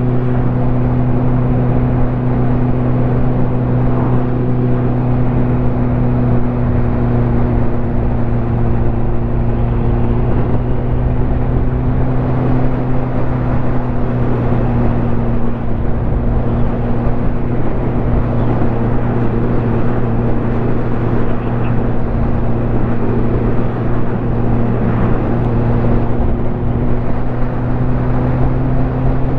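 Ducati motorcycle engine running at a steady cruising speed, its note holding even with no dropouts, over a constant rush of noise.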